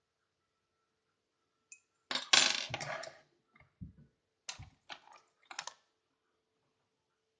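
Small metal objects clattering briefly about two seconds in, then a handful of sharp clicks and taps: lock-picking tools and the lock being handled.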